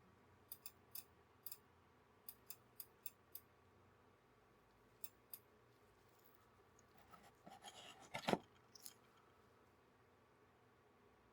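A string of faint, light, sharp clicks, irregularly spaced, then a short rustle with one louder knock near the end.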